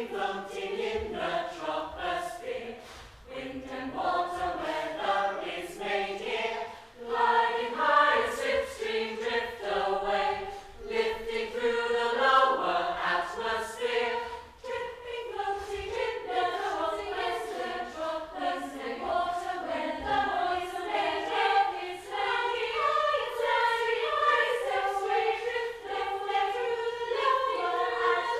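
Several voices singing together in harmony, one part holding a steady note while the others move above it.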